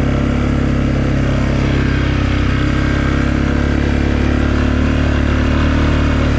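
Honda Recon 250 ATV's single-cylinder engine running at a steady pace while riding, with a steady rush of noise over the engine note.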